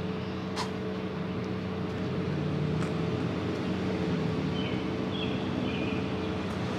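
Steady outdoor city hum, a mix of machinery drone and distant traffic, with a few short high chirps and two faint clicks.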